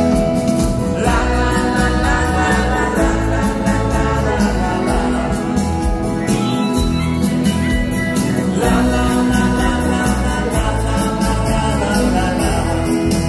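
Live dance band playing an upbeat song with a steady beat, with singing over it.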